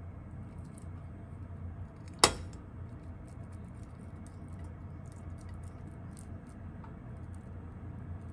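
A metal spoon against a glass baking dish: one sharp clink about two seconds in, then faint light scrapes and taps as the spoon spreads bean paste, over a steady low hum.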